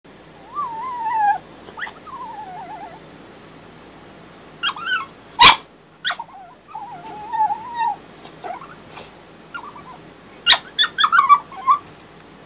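French bulldog whining and howling in the crate, a series of wavering cries that rise and fall in pitch, protesting her confinement. Two sharp knocks cut in, the loudest about five seconds in and another near the ten-second mark.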